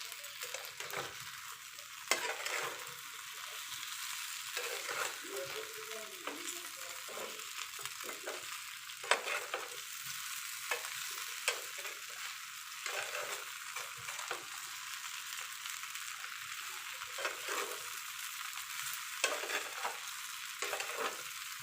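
Flour-coated cauliflower pieces sizzling as they fry in hot oil in a pan. A spatula stirs and turns them, with scattered clicks and scrapes against the pan.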